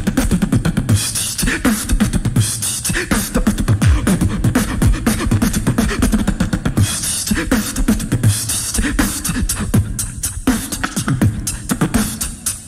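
Loopstation beatbox performance: mouth-made kicks, snares and vocal sounds layered over a looped beat, with bursts of hissing high sounds about a second in and again around seven seconds.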